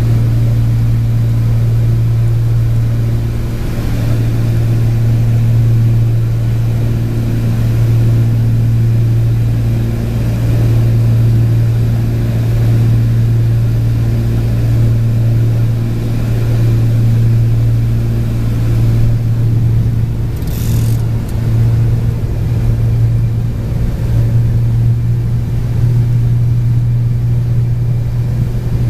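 Cabin drone of a Cessna 402's piston engines and propellers in cruise descent: a loud, steady low hum with a slow regular pulsing in the tones above it. A brief hiss comes about two-thirds of the way through.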